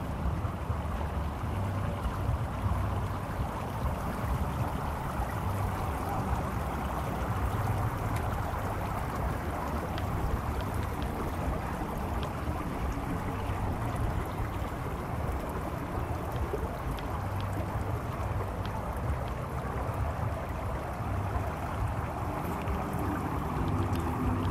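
Steady rush of water, with wind rumbling on the microphone.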